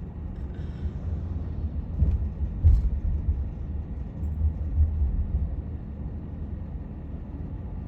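Minivan driving, heard from inside the cabin: a steady low road and engine rumble that swells a couple of times, with a short knock about two and a half seconds in.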